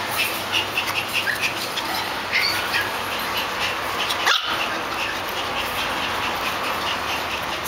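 Poodles barking: short, scattered barks, mostly in the first couple of seconds.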